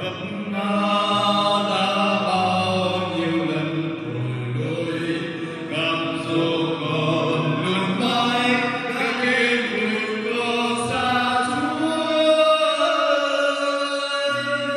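A man singing a Vietnamese Catholic hymn over sustained instrumental accompaniment, amplified through a Bose MA12 loudspeaker system in a reverberant church.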